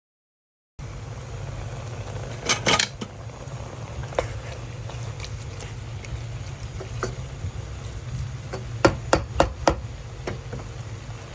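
Kitchen utensils clinking and knocking against pots and dishes over a steady low hum. There are a few scattered clinks, then four sharp knocks in quick succession near the end.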